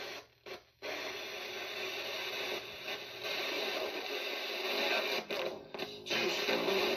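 Radio static hiss from a spirit box sweeping through stations. It cuts out sharply for a moment near the start and a couple of times about five to six seconds in.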